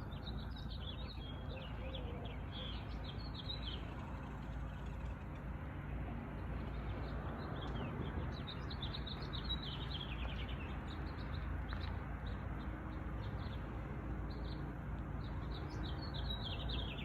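Small songbirds chirping, in repeated bursts of quick high trills that fall in pitch, over a steady low background rumble.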